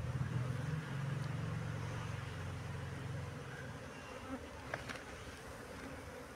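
Cluster of honeybees buzzing, a steady low hum that fades after about three and a half seconds, with a couple of faint ticks near the end.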